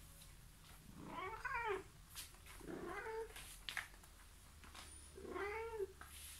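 Bengal cat meowing three times, drawn-out calls that rise and then fall in pitch, with a few light clicks between them.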